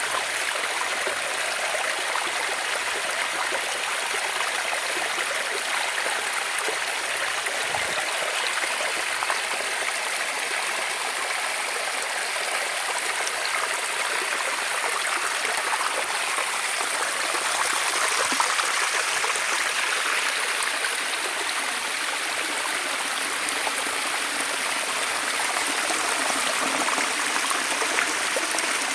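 Running water flowing steadily, a continuous rush that swells slightly about two-thirds of the way through.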